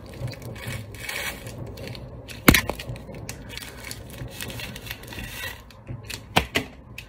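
Plastic film wrapper of a triangle kimbap being peeled open by hand, crinkling and rustling, with a sharp crackle about two and a half seconds in and two more near the end.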